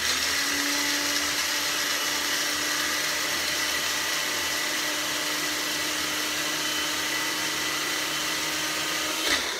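Small electric grinder running loud and steady for about nine seconds, chopping whole dried crickets into coarse cricket flour. It starts suddenly and winds down just before the end.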